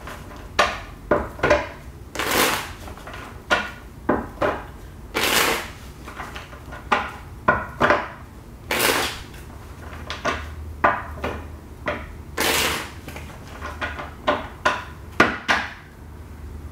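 A deck of tarot cards being shuffled by hand: a string of short flicks and taps, with a longer swish of sliding cards every few seconds.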